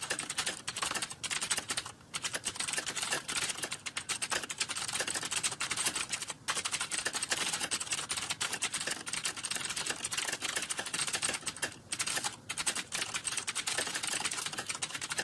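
Fast typing on a computer keyboard: a dense stream of key clicks with a few brief pauses.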